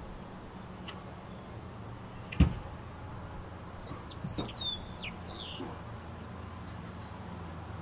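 A single sharp knock about two and a half seconds in, then a few short bird chirps, over a steady low hum.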